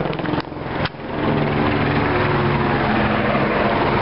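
Helicopter flying overhead: a steady engine and rotor drone that dips briefly twice in the first second, then holds steady.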